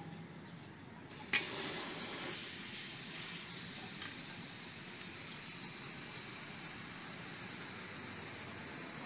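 Air hissing out of a bicycle tyre through its valve as the valve is held open to deflate it. The hiss starts suddenly about a second in and fades slowly as the pressure drops.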